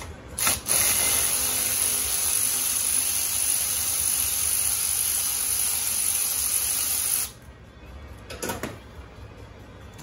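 Cordless ratchet running steadily for about six and a half seconds, loosening the charge air cooler pipe's clamp, after two short blips of the trigger, then it cuts off suddenly. A single short knock follows near the end.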